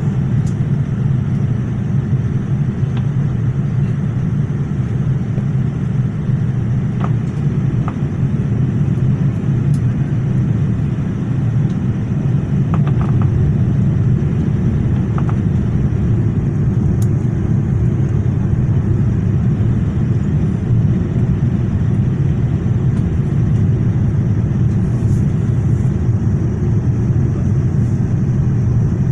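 Steady low rumble of airflow and engines heard inside a Boeing 787 cabin on approach to landing, with a few faint clicks over it.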